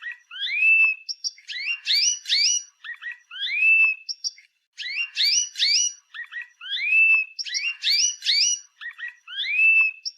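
Canary singing: the same short phrase comes round about every three seconds, a run of quick rising chirps ending in a longer whistle that rises and then holds steady.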